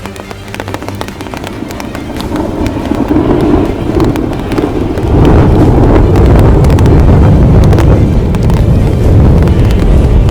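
Hailstorm: dense clattering of hailstones striking hard surfaces over a heavy, noisy rumble of wind and downpour, growing louder and peaking about halfway through.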